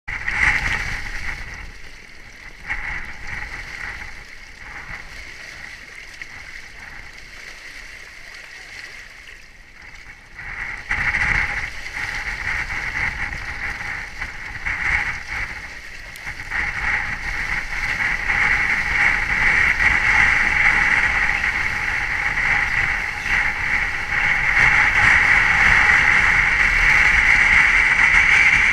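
Water and wind rushing over a GoPro in its housing mounted on a speed windsurfer's rig as the board planes. The rush grows louder in stages from about the middle on as the board gathers speed.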